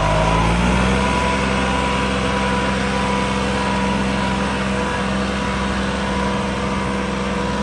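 New Holland 3630 tractor's diesel engine running hard and steady at high revs under load, pulling a disc harrow through dry soil, with a steady high whine above the engine note.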